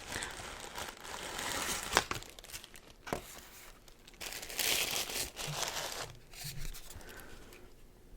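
Packaging being crinkled and torn open: a run of crackly rustling with two sharp clicks, loudest about halfway through, then fading.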